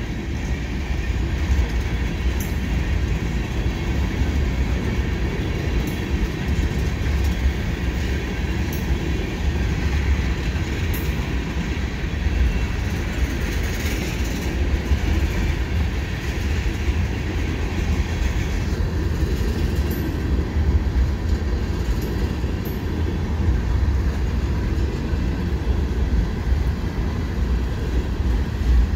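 Freight train of tank cars rolling slowly past: a steady low rumble of steel wheels on the rails, with a few faint brief clicks now and then.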